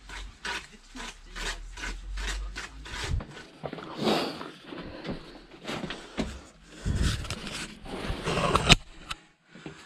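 Cement mortar being stirred in a plastic bucket with a trowel: even scraping strokes, about three a second, for the first three seconds. Then irregular scrapes, knocks and rustling from handling.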